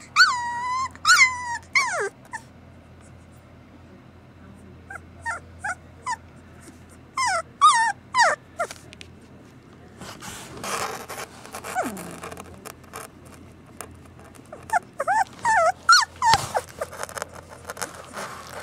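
Samoyed puppy whimpering and whining in bouts of short, high-pitched, sliding cries with pauses between them. There is a stretch of rustling about midway.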